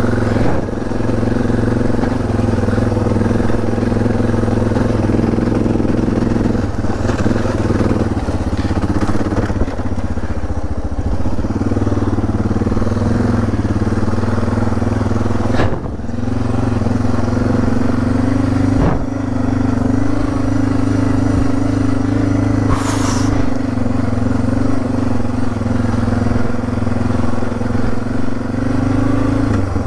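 Suzuki DR650's single-cylinder engine running steadily under the rider, the note dipping briefly about a third of the way in and then holding. Two sharp knocks come in the second half, and a short hiss a little later.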